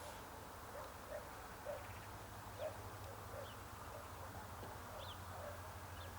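Faint bird calls: a soft low note repeated roughly every second, with a few short high chirps, over a quiet low hum.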